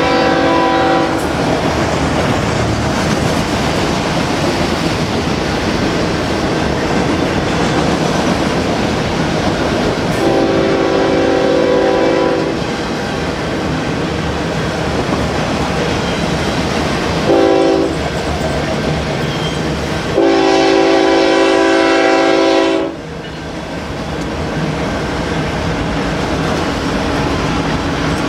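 Freight train cars rolling past with a steady clatter and rumble of wheels on rail, while a diesel locomotive's air horn sounds as an approaching BNSF train nears. First a blast ends about a second in, then come a long blast, a short one and a final long one.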